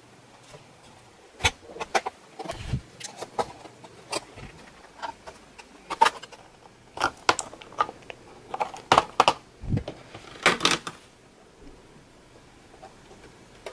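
Plastic snap clips of a Dell Latitude 5490 laptop's bottom cover clicking and popping loose as a plastic spudger pries the panel away from the chassis: an irregular string of sharp clicks and snaps.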